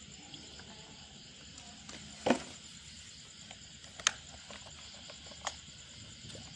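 A few sharp clicks and knocks, the loudest about two seconds in, as a Solo 633 chainsaw with its muffler off is handled and tilted on cardboard. Under them runs a steady faint high-pitched trill.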